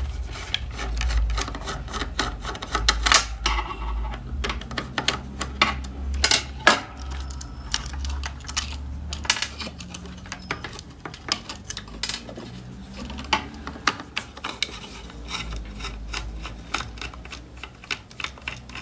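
Irregular small metallic clicks, taps and rattles of screws and metal parts being handled while the inverter's casing is taken apart, over a low hum.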